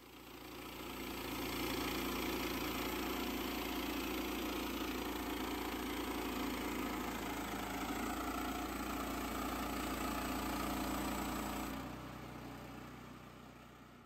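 Woodland Mills HM122 portable band sawmill running under power, its gas engine driving the band blade through a log in a steady drone. The sound fades in over the first couple of seconds and fades away near the end.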